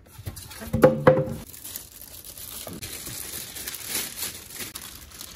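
Thin clear plastic bag crinkling and rustling as it is pulled back off a computer monitor, with a brief low hum about a second in.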